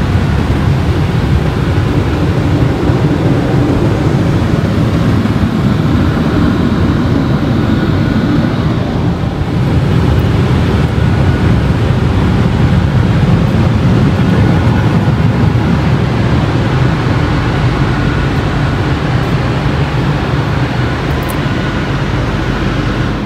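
Automatic car wash air-dryer blowers running, a loud steady rush of air heard from inside the car during the drying stage.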